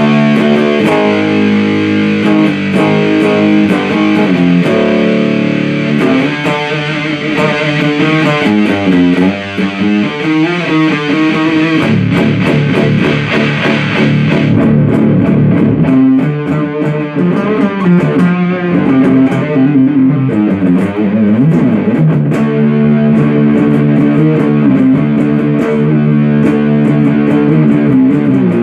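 Electric guitar played through a 77 Fuzz Blender, a Big Muff-style fuzz pedal, into an amp: thick, distorted fuzz riffs with sustained chords and single-note runs. About halfway through, the treble drops away sharply and the tone turns darker.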